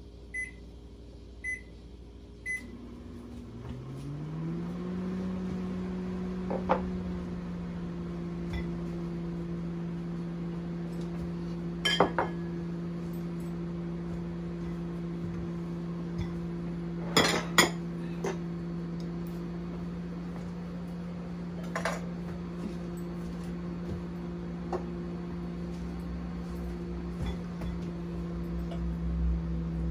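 Microwave oven started: three short keypad beeps, then its hum comes on, rising in pitch over a couple of seconds and running steadily. A few sharp clicks and clinks of dishes sound over it.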